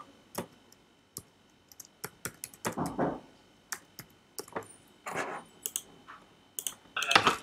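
Computer keyboard typing: scattered, unevenly spaced keystrokes as a short terminal command is typed.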